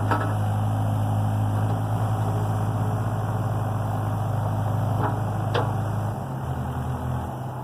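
Excavator's diesel engine running steadily, its note changing about six seconds in, with a few short knocks at the start and about five seconds in.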